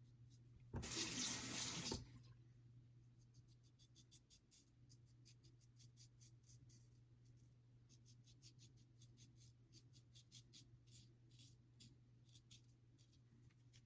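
A tap runs briefly, for about a second, near the start. Then a GEM Pushbutton single-edge safety razor scrapes through stubble in a series of short, faint strokes.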